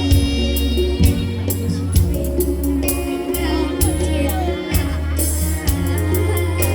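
Music with a steady beat and a held bass line.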